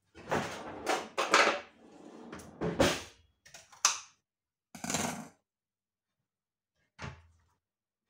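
A carton of tomato sauce being handled and snipped open with scissors: a run of rustling and crinkling in the first few seconds, another burst about five seconds in, and a soft thump about seven seconds in.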